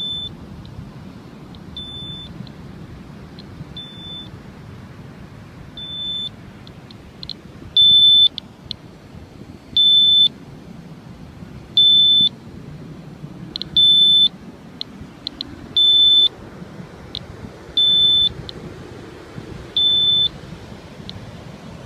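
Handheld radiation detector's alarm beeping, one high tone about every two seconds: the reading is over its alarm threshold of about three times background (99). The beeps are faint at first and loud from about eight seconds in, with short ticks between them.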